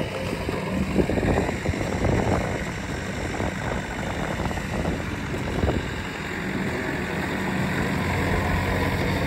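Pickup truck engine idling: a steady low hum under irregular rumbling noise. The hum fades in the middle and comes back near the end.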